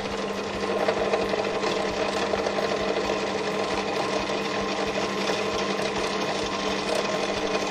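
Benchtop pillar drill running with a steady motor hum while its bit is fed down to drill holes out to 6 mm.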